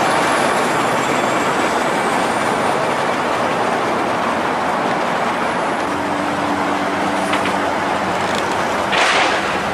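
Steady city road traffic noise from cars passing on the street. A low steady hum joins about six seconds in, and there is a short hiss near the end.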